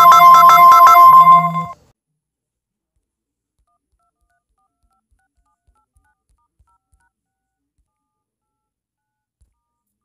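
LG G5 smartphone ringtone playing loudly: a fast run of repeated bright notes over a low swelling tone. It cuts off suddenly a little under two seconds in as the incoming call is answered, and near silence follows.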